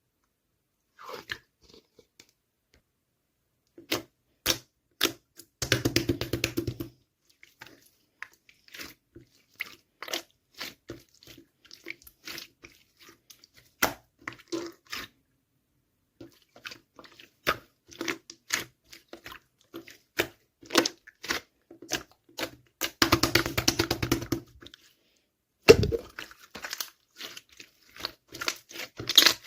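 Slime being squished and pressed by hand, making sticky clicks and pops, with two bursts of rapid crackling, about six seconds in and again near twenty-three seconds.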